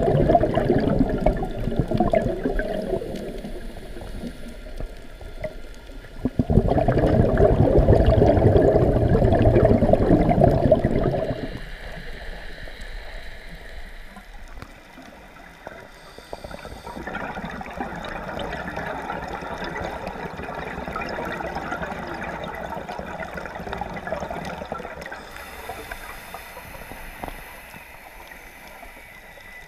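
Scuba regulator exhaust bubbles heard underwater: two long, loud rushes of bubbling, one at the start and one from about six to eleven seconds in, then a fainter, steadier bubbling hiss.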